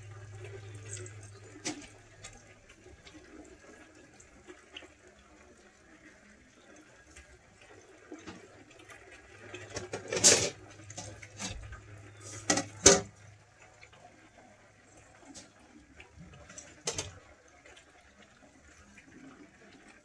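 Whole turkey frying in a propane fryer pot: hot oil bubbling and sizzling steadily, with a low hum over the first several seconds. A few sharp metal clanks cut through, the loudest two about half a second apart just past the middle.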